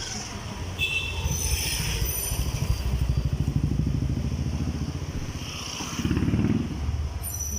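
Motorbike engine running close by in street traffic: a low, fast-pulsing engine note that swells twice. There are a few brief high-pitched tones near the start.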